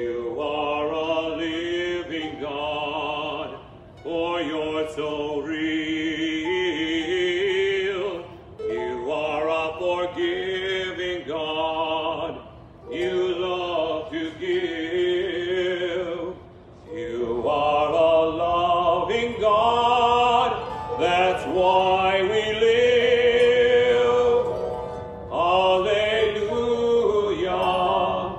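A solo voice singing long, sliding phrases with vibrato in an operatic style, pausing for breath every few seconds, with a harp playing beneath.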